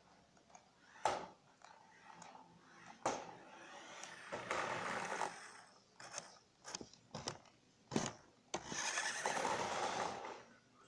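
Toy RC car running over an obstacle course: sharp knocks about one, three and eight seconds in, a quick run of clicks near the middle, and two longer rushes of motor and wheels scraping over a hard surface.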